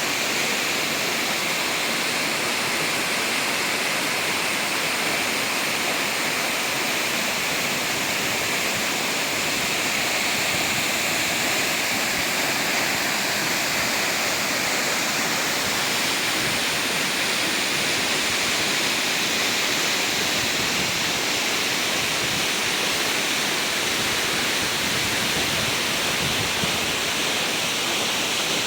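Wah Kaba Falls: a steady, even rush of falling water.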